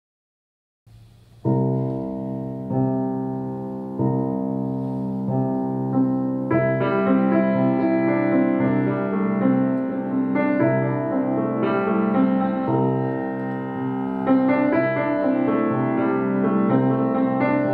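Grand piano being played in an improvisation. It enters about a second and a half in with held chords and grows fuller and busier, with higher notes, from about six seconds.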